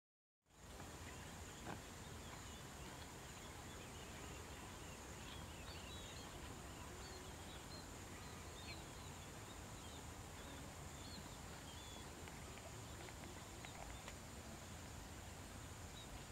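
Rural outdoor ambience that starts about half a second in after silence: small birds chirping over a steady, thin, high insect drone and a low background rumble.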